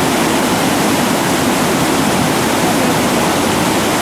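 Whitewater rapid rushing: a steady, loud wash of churning river water.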